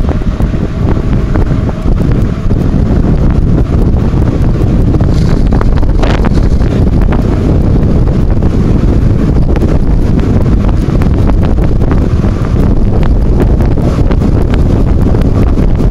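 Wind buffeting the microphone of a camera carried on a moving bicycle: a loud, steady rumble, with scattered small clicks.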